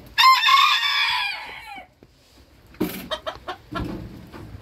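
Booted bantam rooster crowing once, a short crow of under two seconds that drops in pitch at its tail. About a second after it ends, a run of short clucking calls follows.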